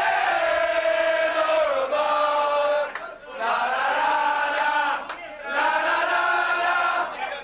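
A group of men chanting together in unison on long held notes, with short breaks for breath about three and five seconds in.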